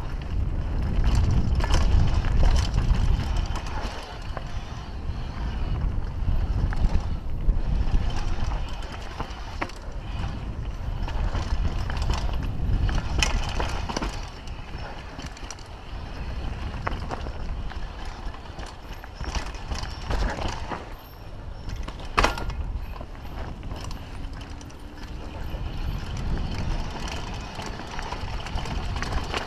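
Wind buffeting the microphone of a helmet-mounted action camera during a fast downhill mountain-bike descent, with tyres running over dirt and rocks and the Kona Coiler's chain and frame rattling and knocking over bumps, one sharp knock about three quarters of the way through.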